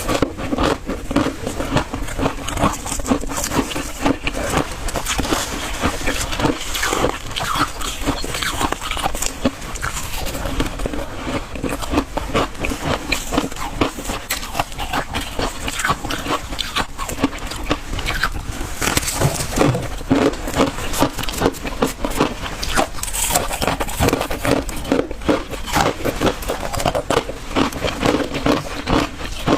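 Close-miked biting and chewing of frozen freezer ice, a dense run of crackling crunches, several a second.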